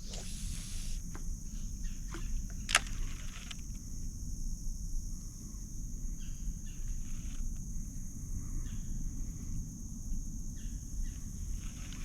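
Steady high-pitched drone of insects, over a low rumble, with a few scattered clicks and knocks and one sharp click about three seconds in.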